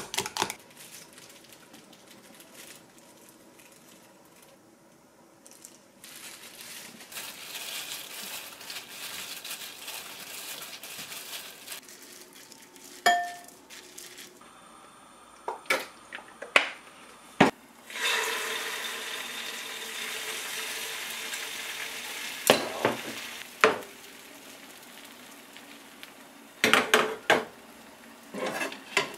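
Home kitchen sounds: scattered clinks and knocks of glass dishes and utensils, then, from about two-thirds of the way in, a steady sizzle of beaten egg frying in a pan, broken by a few sharp knocks of a utensil.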